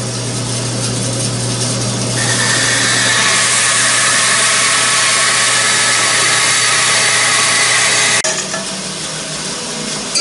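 King bandsaw running and ripping a bevel along a small wooden cleat: a steady motor hum, with a loud, hissing cutting noise that builds about two seconds in. About eight seconds in the sound drops sharply.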